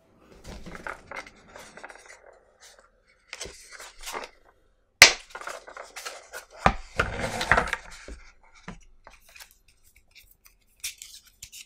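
Hands handling a hard plastic tool case: scraping and rubbing on the case, then a sharp click about five seconds in as a latch snaps open. After that come clattering and rattling as the lid opens, then fainter paper rustling as the manual is handled.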